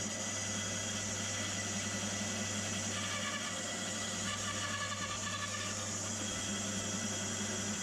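A steady low mechanical hum, like a motor running, with a few faint steady tones above it.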